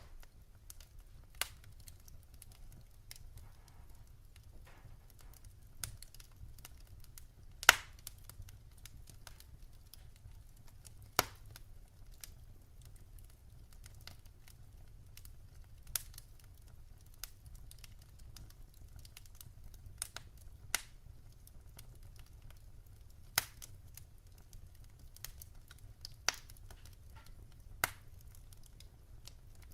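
Wood fire burning in a fireplace: sharp pops and crackles at irregular intervals, a dozen or so, over a low steady hum.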